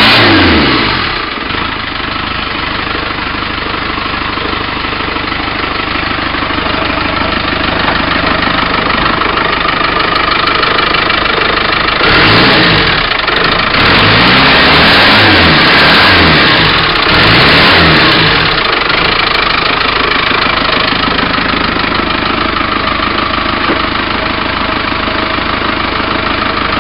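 Tdi turbodiesel engine in a Rover P4, freshly started, settling from a rev to a steady idle. About halfway through it is revved up and down several times, then returns to idle.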